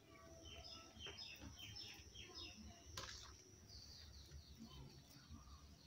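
Faint bird chirping: quick series of short, falling notes, over quiet room tone, with a single click about three seconds in.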